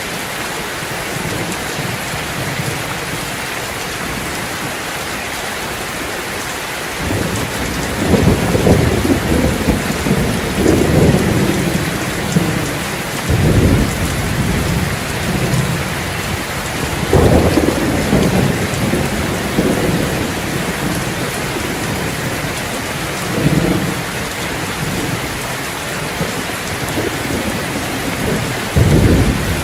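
Steady rain falling, with thunder rumbling in long, low peals that start about a quarter of the way in and come again several times.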